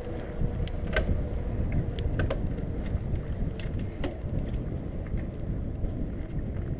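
Mountain bike rolling over a dirt trail: a steady low rumble of wind on the microphone and tyre noise, with scattered sharp clicks and rattles from the bike jolting over bumps.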